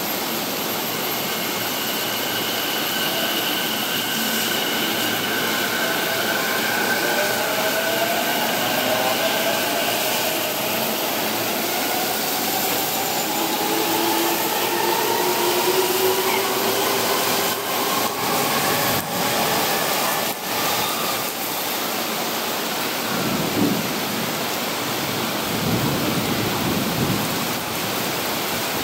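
Heavy rain and water pouring down make a steady rushing hiss, while an E231-series electric train's traction motors whine and rise in pitch as it accelerates along the platform. A low rumble comes in about three-quarters of the way through.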